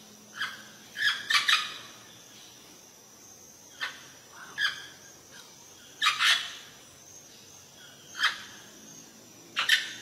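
Amazon parrot giving short, harsh squawks, about seven over ten seconds, some coming in quick pairs.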